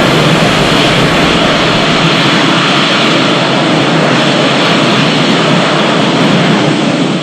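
Loud, steady jet-engine-like rushing noise, a MechaGodzilla sound effect, holding even throughout and easing slightly near the end.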